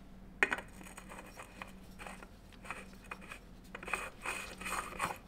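New oil filter being screwed onto a Yamaha Tenere 700 engine by hand: a sharp click about half a second in, then irregular scraping and rubbing of hand on the metal filter can as it is turned, busier near the end.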